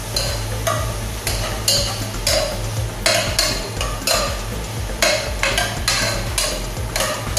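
Metal spoon stirring and scraping ginger, garlic and onion sautéing in a pot, in short strokes about twice a second over a steady sizzle.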